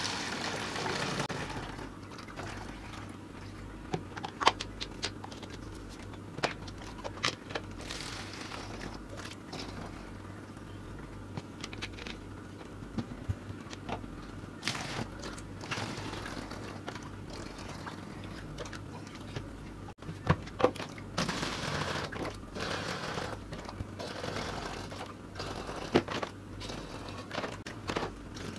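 Salt water poured through a plastic funnel into plastic bottles, trickling at the start and again later on. Scattered sharp clicks and crinkles of the thin plastic bottles and funnel being handled come in between, over a steady low hum.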